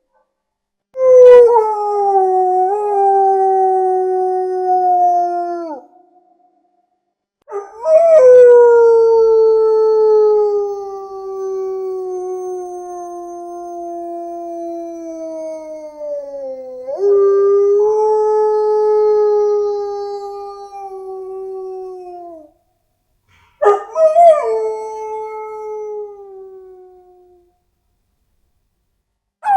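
A dog howling: four long howls separated by short pauses, each starting with a quick rise and then sliding slowly down in pitch, the second one drawn out for about nine seconds.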